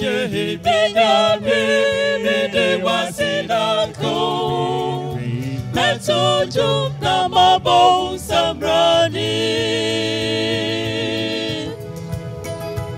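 Small mixed gospel vocal group, two men and two women, singing a Twi song in close harmony over a steady low accompaniment. Near the end they hold one long chord, which gives way to softer music.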